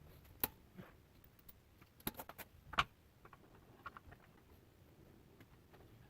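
A few sharp clicks and knocks of tools and hardware being handled during a bumper install, the loudest about three seconds in, then a few faint ticks.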